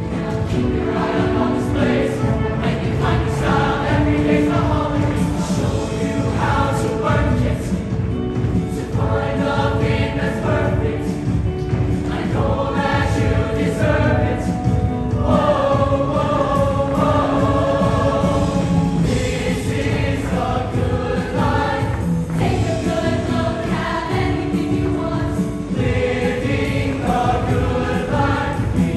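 Mixed show choir of many male and female voices singing in harmony, with live band accompaniment.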